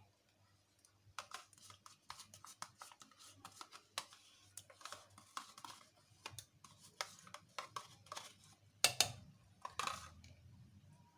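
Spoon clicking and scraping against a container while vanilla yogurt is spooned into a pan of lemon cream: irregular small clicks throughout, with two louder scrapes about three quarters of the way through.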